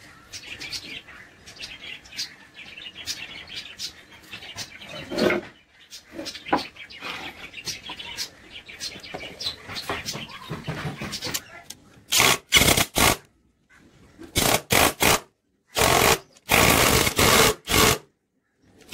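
Light clicks and knocks as cut boards are handled. About twelve seconds in, a cordless drill starts running in short bursts, three and then three more, followed by a longer pulsing run, boring holes through the edge of a board.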